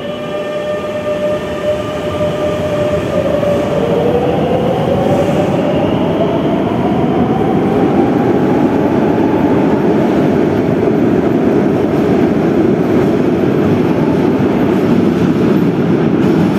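Madrid Metro Serie 9000 electric train pulling out of the station: a steady hum while it stands, then about three seconds in the traction motor whine starts and climbs in pitch as the train accelerates away, under a loud rolling rumble that eases off near the end.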